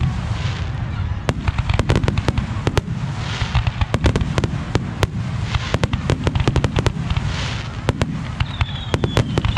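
Aerial fireworks bursting in rapid succession: many sharp bangs over a constant low rumble, with crackling sprays between them. High whistling tones begin near the end.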